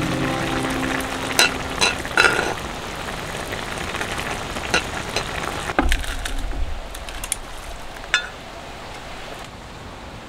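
Ramyeon broth boiling and bubbling in a pan on a portable gas burner, with metal chopsticks clicking against the pan several times. About six seconds in, the noodles and broth are poured from the pan into a bowl, with a dull thud, and the bubbling gets quieter after that.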